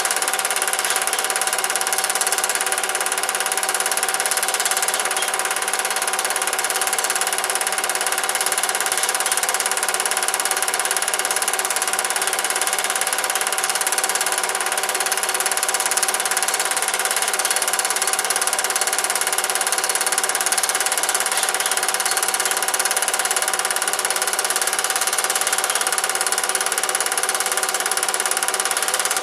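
Cine film projector running: a steady mechanical whirr and clatter of the motor and film transport, with a constant hum and no change in speed.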